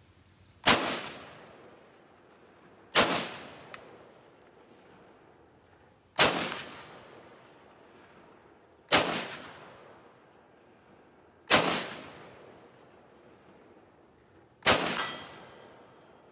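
M1 Garand semi-automatic rifle fired six times, single shots about two to three seconds apart, each a sharp report echoing away over about a second.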